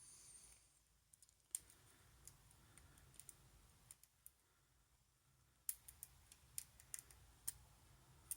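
Faint, scattered metallic clicks of a lock pick working the pins inside a small padlock, with a cluster of sharper clicks in the second half and a brief high squeak right at the start.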